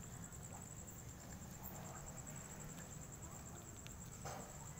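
An insect trills steadily at a high pitch over a low background rumble, with one short soft sound about four seconds in.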